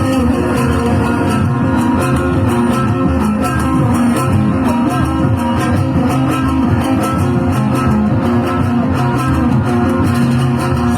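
Live band music with no singing: a guitar plays the melody over bass and percussion.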